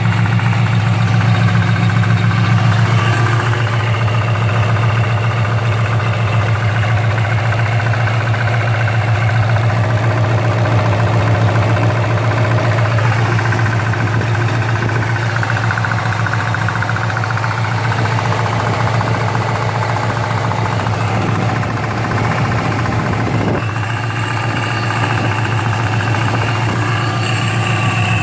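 Engine of a 2015 GT fitted with a Paxton supercharger, idling steadily with a knocking sound whose cause the owner does not know.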